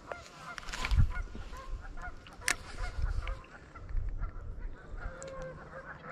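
Geese honking over and over, short calls overlapping through the whole stretch, over a low rumbling noise that is loudest about a second in.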